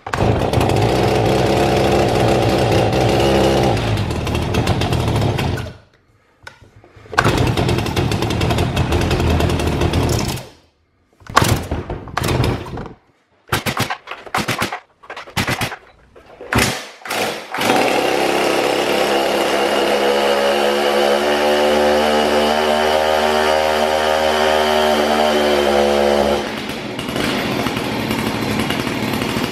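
Stihl MS390 two-stroke chainsaw engine running rough: it dies about six seconds in, runs again, cuts out near ten seconds, sputters in short catches, then runs steadily for about eight seconds before dropping lower near the end. Unhealthy running after a broken decompression valve, which the owner fears has damaged the engine.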